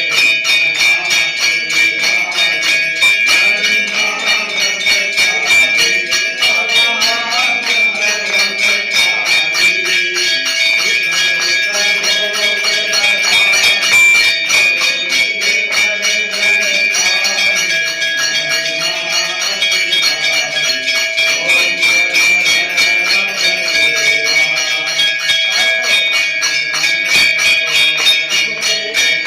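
Temple bells rung without pause for an aarti: rapid strikes, many a second, with steady high ringing tones held over them.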